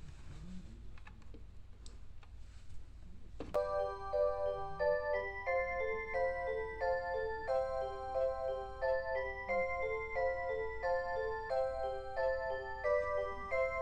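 Alarm clock going off with an electronic chime melody: a click about three and a half seconds in, then a tune of clear, bell-like notes, about four a second, repeating. Before it starts there is only faint background noise.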